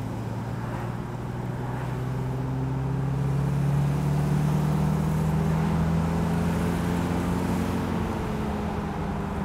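1969 Pontiac Firebird's 230-cubic-inch overhead-cam inline six running under way, heard from the open convertible's cockpit. Its note rises gently and grows louder over the first few seconds, then eases off slightly.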